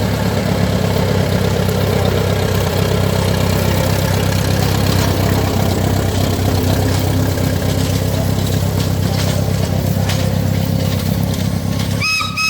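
Tractor's diesel engine running steadily and loudly at an even pitch. It breaks off abruptly near the end.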